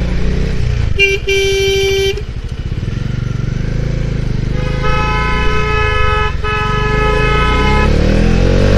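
Bajaj Dominar's single-cylinder engine running at low speed in slow traffic, with vehicle horns honking over it. About a second in, a short toot is followed by a blast of about a second. From about halfway through comes a longer honk of some three seconds, broken once by a brief gap.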